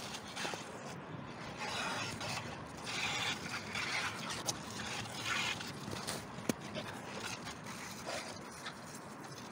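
Irregular scraping and rustling of hands working at charred cardboard and a thin plastic hose, with two short sharp clicks midway.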